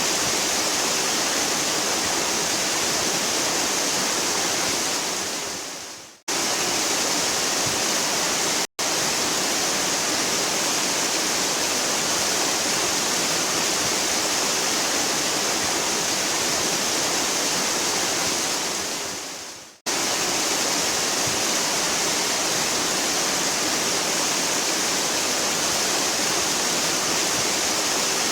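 Waterfall rushing steadily and heavily. The sound fades out to silence and cuts sharply back in about six seconds in and again about twenty seconds in, with a split-second dropout near nine seconds.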